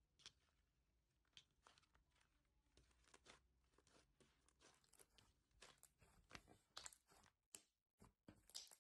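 Thick white slime being stretched, folded and pressed by hand: faint, irregular crackling and small tearing snaps, coming thicker and louder in the last few seconds.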